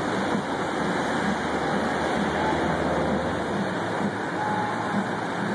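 Steady outdoor rush of a plaza fountain's falling water mixed with road traffic, with a low rumble that fades out about three and a half seconds in.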